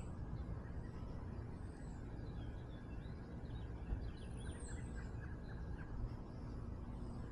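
Small birds chirping over a steady low outdoor rumble. A few high calls sweep downward, and a brief run of short chirps comes in the middle.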